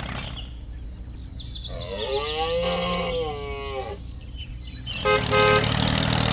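Sound effects over a steady low engine-like hum: a falling whistle in the first second or so, then a long wavering call about two seconds in, and a quick run of short beeps near the end.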